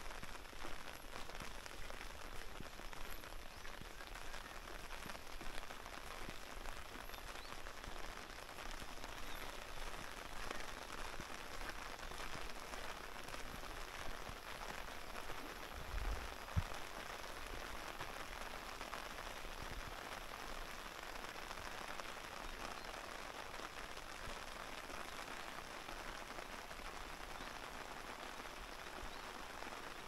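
Steady rain falling on flooded rice paddies and a wet country road: an even, dense hiss of countless drops. A brief low thump about halfway through.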